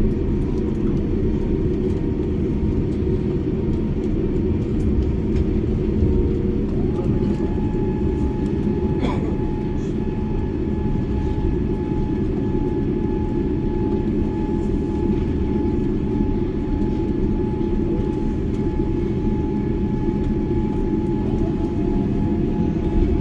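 Steady low rumble of a Boeing 787-9 airliner heard inside the passenger cabin. A thin whine rises in pitch about seven seconds in and again near the end, and there is a single sharp click about nine seconds in.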